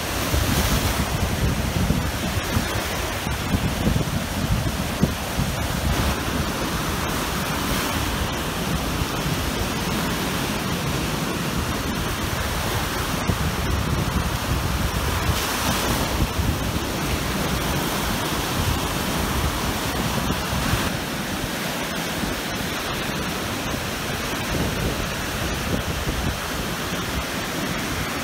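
Waves breaking on a lakeshore: a steady rush of surf that swells now and then as a wave comes in, with wind rumbling on the microphone.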